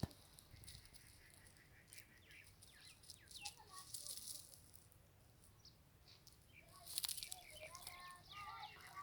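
Faint high chirping calls and light rustling, with a sharp click at the very start.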